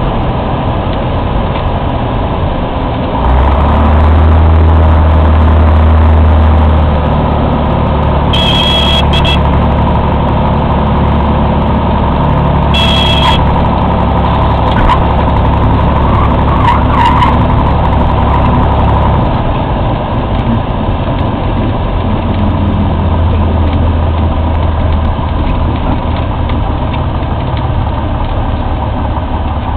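Cessna 182T's six-cylinder Lycoming IO-540 engine and propeller, heard from inside the cockpit during a landing and rollout: a steady drone that grows louder from about 3 to 7 seconds in and eases lower from about 19 seconds on. Two brief high beeps sound about 8 and 13 seconds in.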